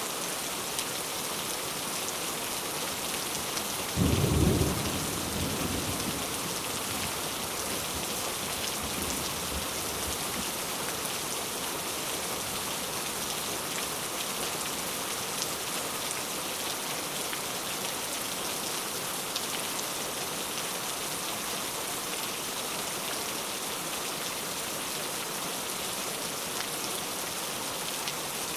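Heavy rain falling steadily, with a sudden clap of thunder about four seconds in that rumbles away over a couple of seconds.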